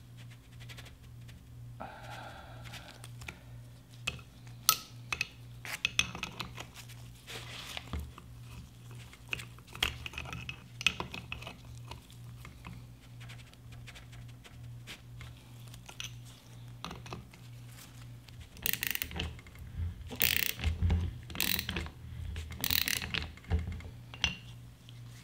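Needle-nose pliers clicking and scraping against the screw-type piston of a Mazda RX-7 rear brake caliper as the piston is turned to back it out of the bore. Small metal clicks and short scrapes come at irregular intervals, with a run of louder scrapes in the last few seconds.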